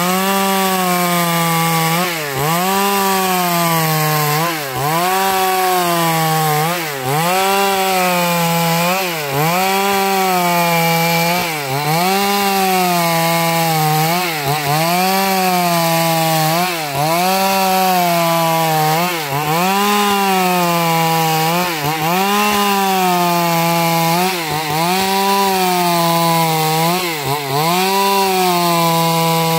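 Stihl MS 382 chainsaw, a 72 cc two-stroke, running at full throttle while ripping a wooden plank lengthwise along the grain. Its engine note dips briefly and recovers about every two seconds as the chain bites into the wood.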